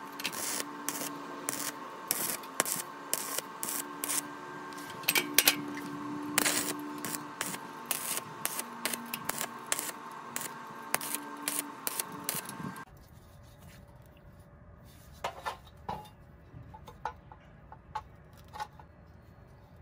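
Stick-welding arc crackling and spitting as a steel electrode welds square steel tube, with a steady hum alongside. About 13 s in it stops abruptly, leaving a few light clicks and taps as the welded steel parts are handled.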